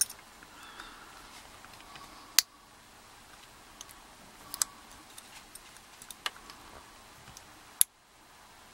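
Small metal padlock parts and tools being handled, giving scattered light clicks and taps with a few sharper clicks, as the padlock's stuck plug is worked at.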